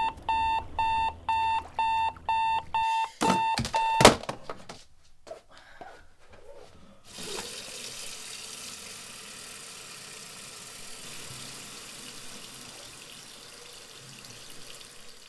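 Electronic alarm clock beeping, a high tone pulsing about two and a half times a second, which stops about three seconds in and is followed by a few sharp knocks. From about seven seconds in, a bathroom tap runs steadily into a washbasin.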